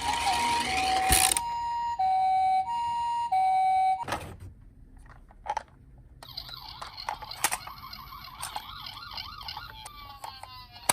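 Electronic two-tone siren of a toy ambulance minicar, alternating a higher and a lower tone in the Japanese ambulance 'pee-po' pattern, then cutting off about four seconds in. A quieter, fast-wobbling siren tone follows from about six seconds in.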